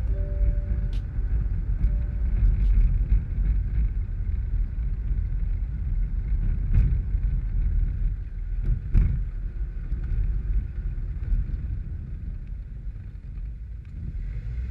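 Longboard wheels rolling fast downhill on asphalt, a steady low road rumble with wind buffeting the microphone. A couple of sharp knocks about seven and nine seconds in.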